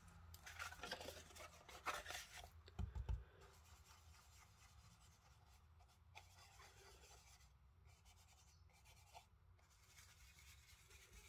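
Soft scratchy brushing of an ink blending brush being worked over card through a mask. The strokes fall in the first three seconds or so, then it goes nearly silent.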